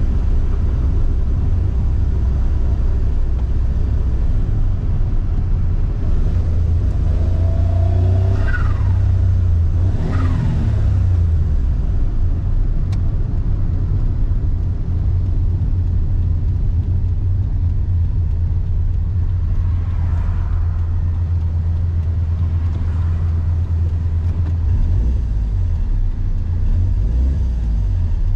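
Mazda Autozam AZ-1's mid-mounted turbocharged three-cylinder engine running while driving, heard from inside the cabin as a steady low drone. About eight to eleven seconds in the revs briefly rise and fall in pitch.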